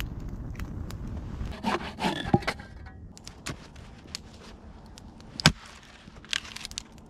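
Axe blows splitting a short log of twisted-grain firewood, with the wood scraping and creaking as it gives; several sharp knocks, the loudest about five and a half seconds in.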